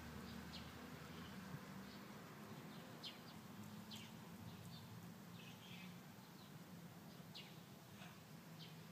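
Near-quiet garden ambience: scattered short, high bird chirps, about a dozen over the stretch, over a faint steady low hum.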